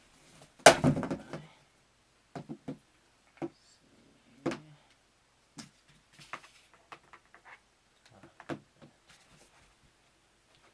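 Handling noise from unpacking and plugging in a keytar's power adapter and cable: scattered clicks, knocks and light rattles, with one loud thump under a second in.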